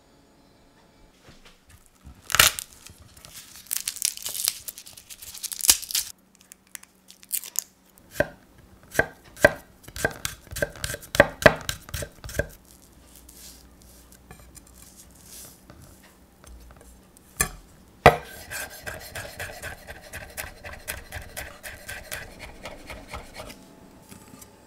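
Kitchen knife chopping garlic cloves on a wooden cutting board. After some scraping, a run of knocks comes at two to three a second; then, after one sharp knock, a quicker run of lighter chops follows.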